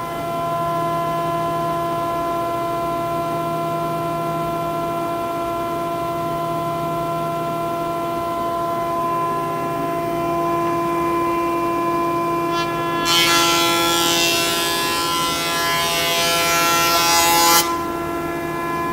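Minimax FS41 Elite S combination jointer/planer running as a thickness planer with a steady whine. About thirteen seconds in, a board feeds through the cutterhead and the loud noise of the cut lasts about four and a half seconds, stopping abruptly as the board leaves the knives.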